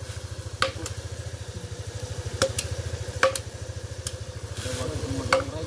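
A small engine idling with a steady low pulsing hum, under a handful of sharp knocks from chicken being chopped.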